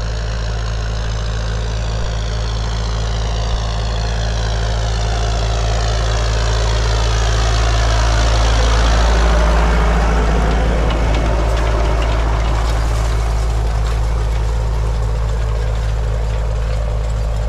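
John Deere 5720 tractor's diesel engine running steadily under load while pulling a power harrow and seed drill. It approaches and passes close by about halfway through, loudest as it passes, then draws away.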